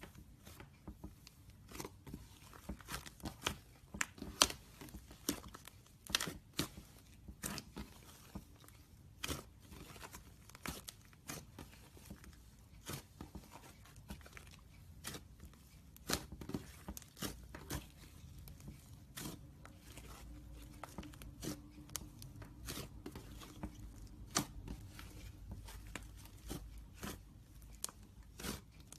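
Homemade slime being squeezed, stretched and pulled apart by hand, making irregular sticky pops and crackles, several a second at times.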